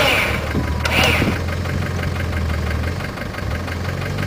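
VW Transporter Syncro's 2.5 TDi five-cylinder diesel engine running steadily at low revs, dropping back a little about three seconds in. Two brief, higher-pitched sounds come over it, one at the start and one about a second in.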